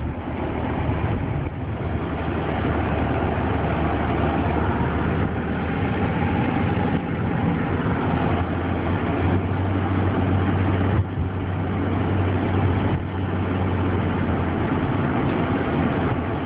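A vehicle engine running steadily, with a low, even hum.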